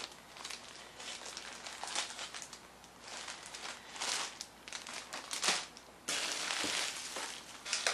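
Thin plastic bag crinkling and rustling as it is handled, in irregular bursts, turning into a denser, continuous rustle from about six seconds in.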